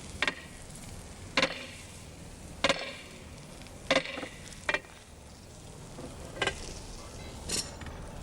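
Hammer blows on a heated iron ring as it is driven down onto an oak hammer stock: seven separate strikes about a second apart, each ringing briefly.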